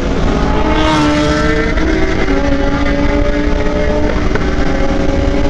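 Sport motorcycle engines running hard at speed, their steady note stepping in pitch about two seconds in and again near four seconds, with a brief rushing swell about a second in. Wind rumbles on the microphone of the moving bike underneath.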